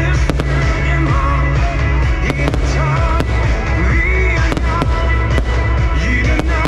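Fireworks going off, with sharp irregular bangs and crackles, over loud pop music with a sung melody and a heavy steady bass.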